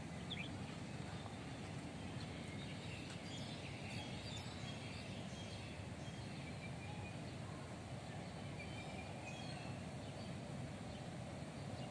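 Steady low outdoor background noise with faint, short bird calls now and then.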